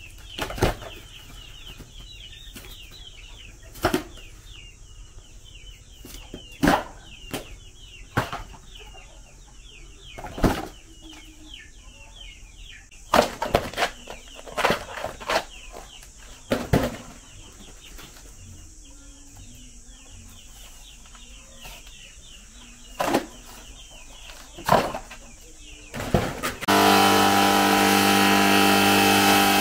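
Chickens calling with many quick, high chirps, broken by sharp knocks at irregular intervals. About 27 seconds in, a motor starts up and runs steadily and loudly.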